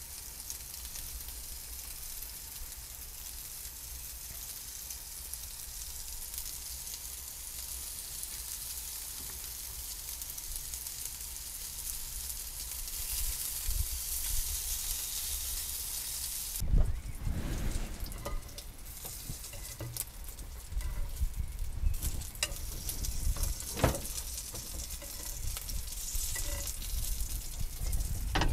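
Meat patties sizzling on a ridged cast-iron grill pan over a gas stove: a steady frying hiss. About two thirds of the way in the hiss stops suddenly, giving way to scattered clicks and knocks of the pan and utensils being handled at the stove.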